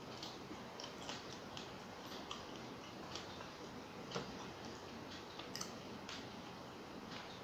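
Eating rice and fish curry by hand: irregular small, wet clicks from chewing and from fingers working the rice on the plate, over a steady low hiss.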